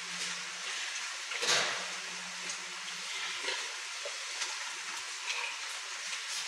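Sow barn ambience: a steady low hum and hiss, with a short, loud hissing burst about a second and a half in and a few faint knocks and grunt-like sounds after it.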